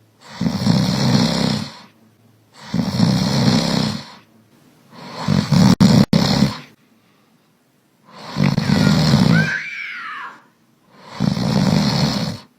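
Loud snoring: five snores about two and a half seconds apart, with silence between them. The fourth snore is longer and ends with a brief whistling glide.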